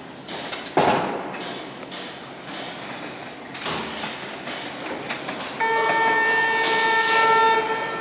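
Toronto subway train approaching with a running rumble, then sounding its horn in one steady blast of about two seconds near the end. A sharp, loud thump comes about a second in.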